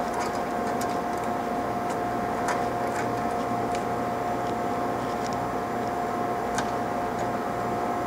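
Steady electrical hum with a constant mid-pitched whine, and a few faint metallic clicks as a hex wrench turns the screw in the collet.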